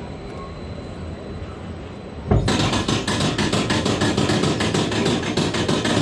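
Roller coaster train of a Euro-Fighter moving quietly, then about two seconds in a sudden loud, fast, even clatter of about eight clacks a second sets in: the lift chain and anti-rollback ratchet as the car climbs the lift hill.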